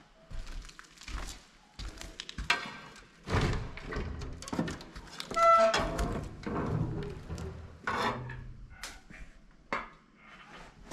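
Irregular knocks and thumps on wooden boards, with a brief squeaky tone about five and a half seconds in.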